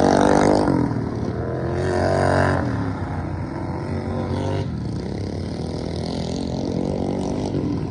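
Modified racing lawnmower engines running at high revs around a dirt track. The pitch drops as they go by in the first second and again about two and a half seconds in, then the engines carry on with a rougher, steadier sound.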